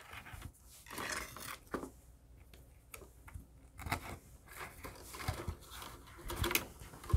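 Thin hookup wires being fed down through holes in cork roadbed by hand: irregular faint rustling, scraping and small clicks as the fingers work the wires through.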